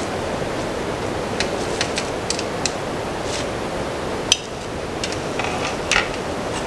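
Glass lid of a Crock-Pot slow cooker clinking and knocking as it is handled and lifted off the pot, a string of light clinks with the sharpest one about four seconds in, over a steady background hiss.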